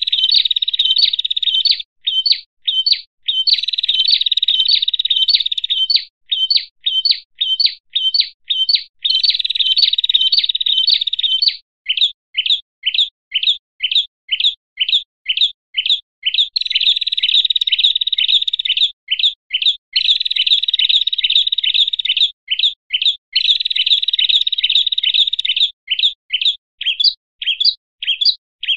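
Agitated scolding calls of a small songbird, the prenjak, looped as bird-lure audio. Runs of separate sharp chirps, about four a second, take turns with stretches of continuous fast trilling a few seconds long.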